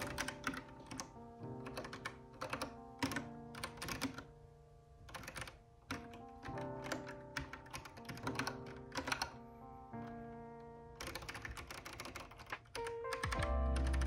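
Keystrokes on a Kinesis Advantage 360 Pro split contoured keyboard, typed in short irregular runs of clicks while editing code, over mellow background music whose bass line comes in near the end.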